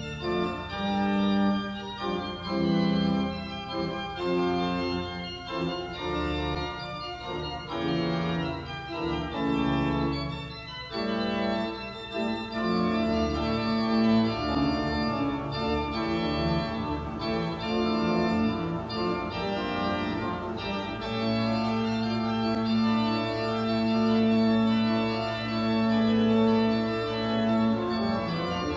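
Organ music: a slow piece of sustained chords changing every second or two, with a long held low note under the last several seconds.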